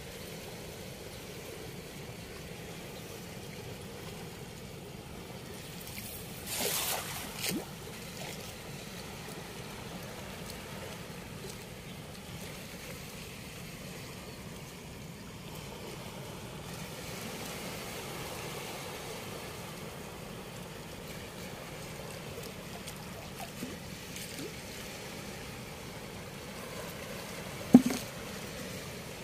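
Steady flow of river water at a weir, with a brief noisy burst about seven seconds in and a sharp knock near the end.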